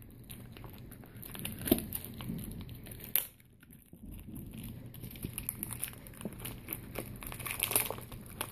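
Product packaging being worked open by hand: irregular crinkling and crackling, with a brief pause a little over three seconds in, then busier handling.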